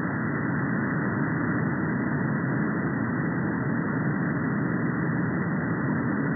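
Steady receiver hiss from a software-defined radio in upper sideband mode, cut off sharply at about 2 kHz by its filter. No signal is present on the 33–34 MHz band: it is the gap between over-the-horizon radar bursts.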